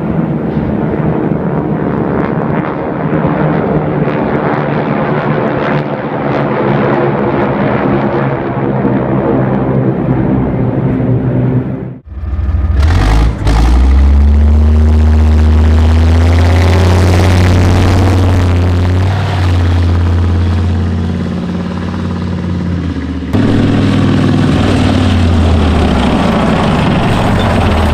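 A formation of aircraft flying over, a steady drone of many engines. About twelve seconds in it cuts to a tank's engine running heavily, its pitch rising and then holding, with another abrupt change near the end.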